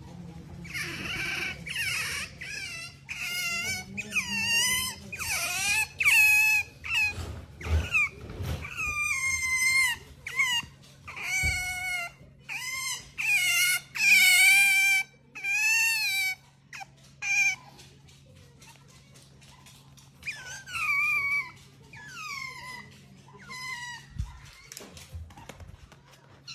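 Pet otter giving a long run of high-pitched squeaking calls, many falling in pitch, coming fast and close together at first and more spaced out in the second half: attention-seeking whining.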